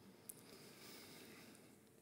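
Near silence: room tone, with one faint click about a third of a second in.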